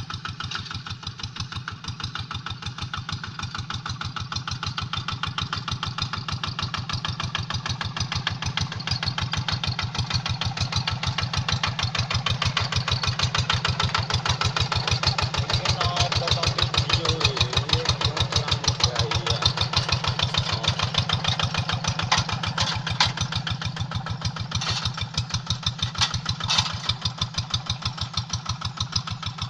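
Kubota single-cylinder diesel engine of a Quick Boxer 1000 hand tractor chugging steadily in a fast, even beat while ploughing hard, dry ground, a little louder through the middle.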